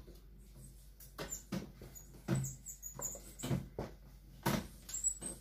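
Marker pen writing on flip-chart paper: a series of short, irregular strokes.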